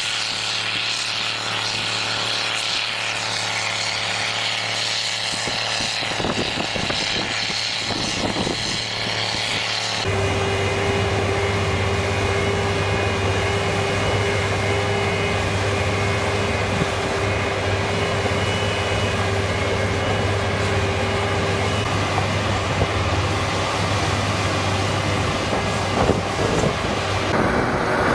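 Heavy agricultural trenching machines running steadily while cutting drainage trenches and laying tile pipe: a continuous engine drone. About ten seconds in it switches abruptly to a louder drone with a steady whine on top, as a different machine takes over.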